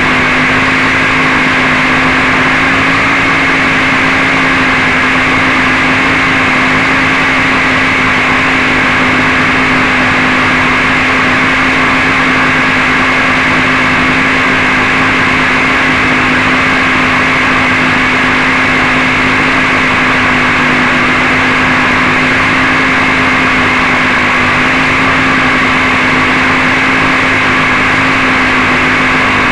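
Steady, unchanging hum with a constant low tone, picked up on the crashed quadcopter's onboard camera feed as it lies in the grass.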